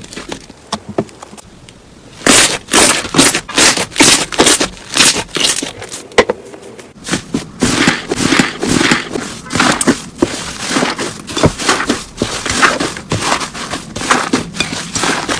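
Slime being pressed and squished by hand, making a run of short noisy squishes. After a quieter first two seconds they come about two a second, then closer together in the second half.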